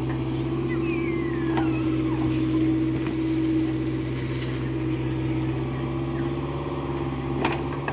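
Caterpillar 304E mini excavator's diesel engine running steadily under load as the boom and bucket dig and lift wet mud, with one sharp knock near the end.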